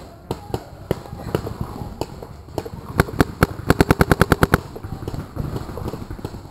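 Paintball marker firing: a few scattered single shots, then a rapid string of shots at about ten a second between three and four and a half seconds in.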